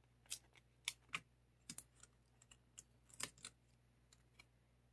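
Hands handling small cardstock die-cut pieces on a craft mat: about ten faint, irregular clicks and taps of paper being picked up, peeled and pressed down.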